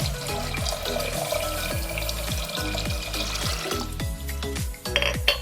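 Water poured into a cooking pot, running steadily for about four seconds and then stopping, over background music with a steady beat. A brief clatter near the end.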